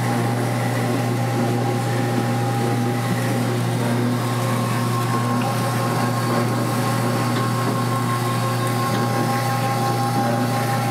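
Electric pizza-dough sheeter (Hooks) running with a steady motor hum and a few fixed higher whining tones, as a ball of dough is fed through its rollers and comes out as a flat round.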